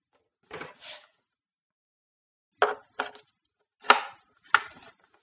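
XLR cable plug pushed into a combo input on a Behringer UMC404HD audio interface: a brief rustle of the cable, then four sharp clicks and knocks of the connector against the panel and seating.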